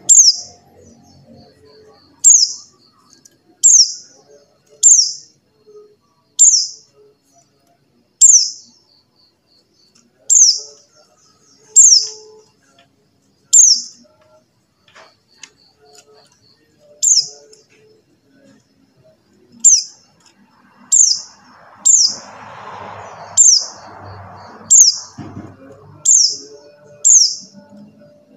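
Pleci buxtoni white-eye giving its call: short, high, downward-sweeping chirps repeated about once a second, with a brief pause partway through. A soft rushing noise sits underneath for a few seconds near the end.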